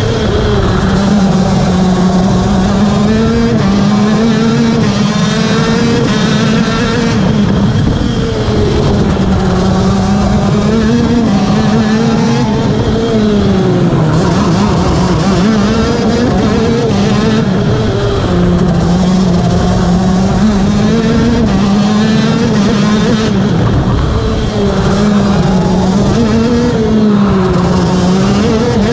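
KZ2 shifter karts' 125cc two-stroke engines at race pace, loud and close, the engine pitch climbing through the gears and dropping off repeatedly as the karts brake and accelerate through the corners.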